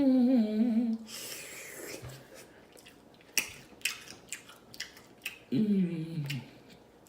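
A woman eating: a falling "mmm" hum of enjoyment, then wet mouth smacks and chewing clicks, and a second falling hum about five and a half seconds in.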